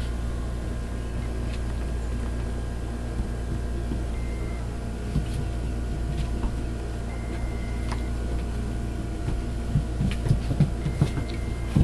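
Steady low hum, with a few soft knocks and rustles near the end.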